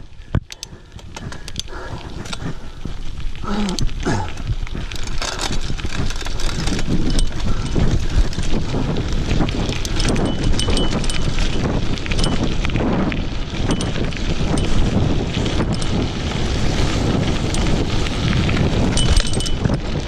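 Mountain bike rolling fast downhill on a loose gravel dirt track: tyres crunching and the bike rattling over stones, with wind buffeting the microphone. The noise builds over the first several seconds as speed picks up, then stays loud.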